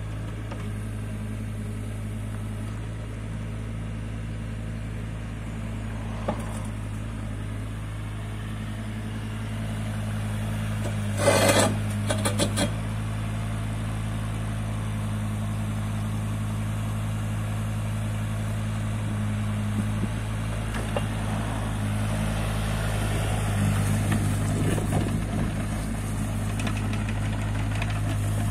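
JCB 8016 mini excavator's small diesel engine running steadily while the machine tracks and slews, with a short burst of loud clanking about a third of the way in. The engine works a little harder near the end.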